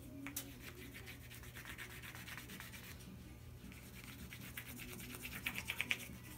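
Small carving knife making short scraping and shaving strokes across a green sugar maple spoon: the final finishing cuts. The strokes come in a quicker, louder run near the end.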